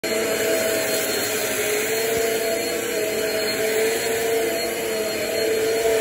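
Eureka Airspeed bagless upright vacuum cleaner running on carpet: a steady motor whine with a slightly wavering pitch over a broad airflow rush.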